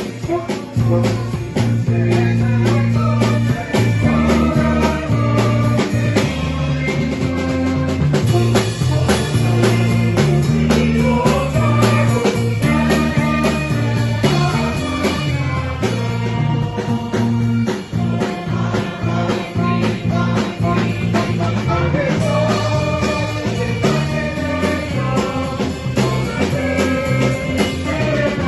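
Instrumental band music with drums keeping a steady beat under bass and melodic lines.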